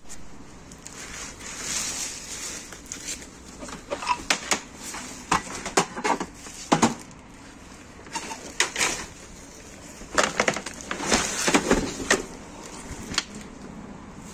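Hands rummaging through rubbish in a dumpster: plastic bags and wrapping rustling and crinkling, with irregular knocks and clatters as hard plastic items are shifted about. The clatter is busiest around the middle and again a little before the end.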